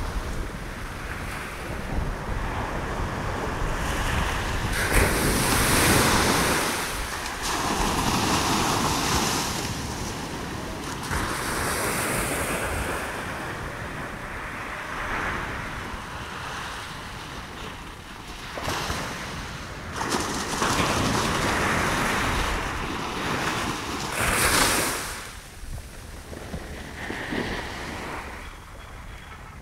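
Sea surf breaking and washing up a sandy beach, a broad hiss that swells and fades as each wave comes in every few seconds, with wind buffeting the microphone.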